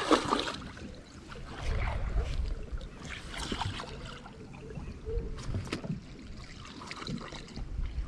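Water sloshing against a plastic fishing kayak's hull, with scattered knocks and rustles as the angler shifts about in the kayak.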